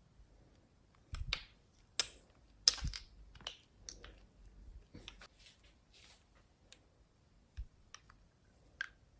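Glossy slime being squished and kneaded by hand, giving irregular sharp clicks and pops of trapped air, busiest in the first few seconds.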